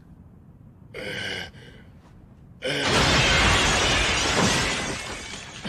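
Sound effect of window glass shattering as a huge cyborg smashes through it: a sudden loud crash of breaking glass with a heavy low impact, starting about two and a half seconds in and dying away over some three seconds.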